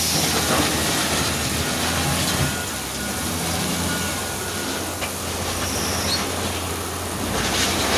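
Wheel loader's diesel engine running steadily amid the noise of the machine working. It eases off slightly mid-way and picks up again near the end.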